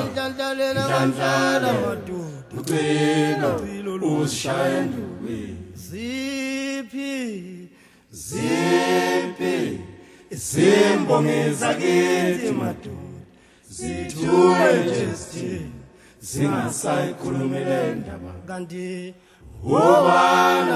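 A cappella vocal group singing without instruments, in phrases of one to two seconds with short breaks between them. About six seconds in, a single wavering voice is heard briefly on its own.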